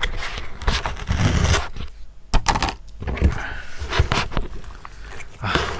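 Foil-paper lid of a paper instant-noodle cup crinkling as it is peeled off and set down, then chopsticks clicking and scraping in the cup as the soaked noodles are stirred, in irregular short knocks.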